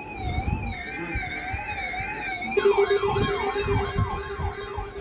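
Electronic siren-style alert tones: a warbling wail wavering about three times a second. About two and a half seconds in, a second, sweeping wail and a steady lower tone join it.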